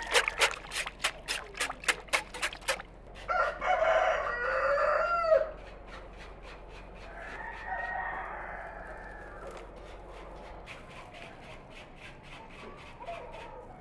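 A wire whisk beating yogurt in a metal pot, clicking about four times a second, stops about three seconds in. A rooster then crows loudly once, and a fainter second crow follows, with light crackling of dry twigs being handled near the end.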